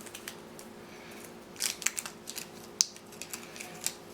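Small parts of a model kit being handled: scattered light clicks and taps with some rustling, one sharper click near the middle, over a steady low hum.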